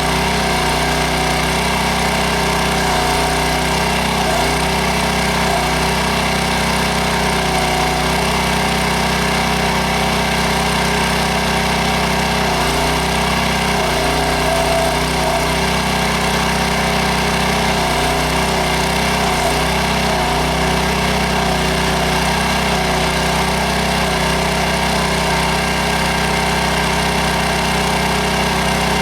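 Towable backhoe's small engine running steadily, driving its hydraulics, its note shifting briefly a few times.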